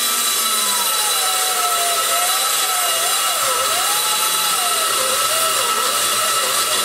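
Die grinder spinning a carbide burr into the exhaust port of a big-block Chevy aluminium cylinder head: a steady high whine and hiss whose pitch sags and wavers as the burr bites into the port roof. It cuts off at the end.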